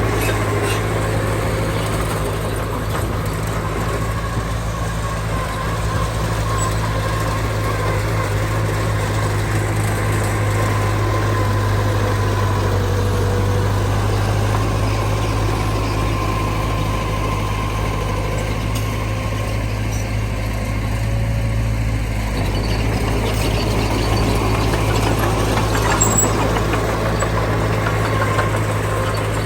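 Heavy diesel earthmoving machinery running steadily, a deep, even engine drone that swells slightly a couple of times in the second half.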